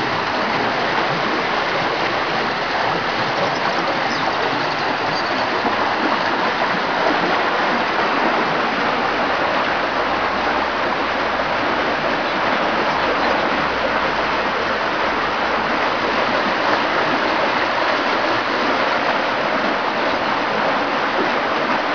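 Floodwater rushing steadily down a lane and churning where it boils up through the broken road surface over a damaged culvert.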